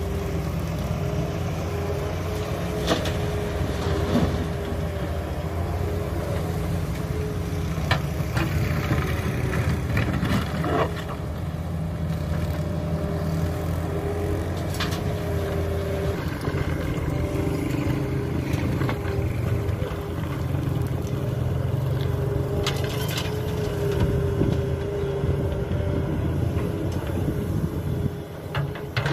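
Wheeled excavator's diesel engine running steadily under working load, with a constant hydraulic hum and scattered sharp knocks and clanks as the bucket breaks and scoops chunks of old asphalt and drops them into a dump truck.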